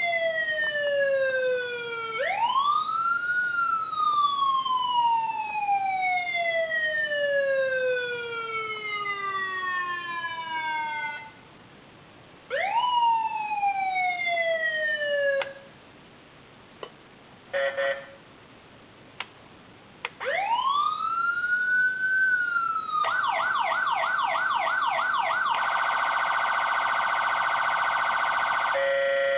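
SVP SA-450 electronic siren sounding through a speaker, turned down by a resistor load for bench testing. It plays several wail sweeps, each rising fast and winding down slowly, with silent gaps between them, and a short steady blare about 18 seconds in. Late on, a wail climbs and breaks into rapid up-and-down sweeps of about three a second, then a faster warble, and a steady horn-like blare near the end.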